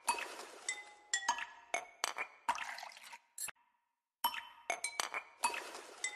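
Wire whisk stirring a thick mango cream mixture in a glass bowl: quick, irregular clinks of the wires against the glass, each followed by a short ring, over the soft swish of the liquid. The clinking breaks off for under a second about halfway through.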